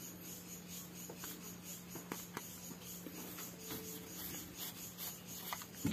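Faint clicks and rubbing as hands handle a fishing rod's foam grip and metal reel seat. Insects chirp steadily behind, with a low steady hum.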